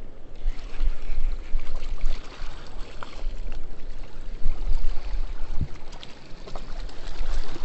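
Wind buffeting the microphone in an uneven low rumble, over a steady rush of spillway water.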